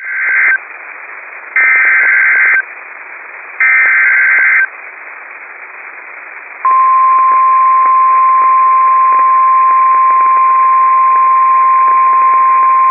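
NOAA Weather Radio Emergency Alert System activation heard through a radio receiver with static hiss: three short bursts of warbling SAME header data, each about a second long, then the steady 1050 Hz warning alarm tone starting about six and a half seconds in and holding on.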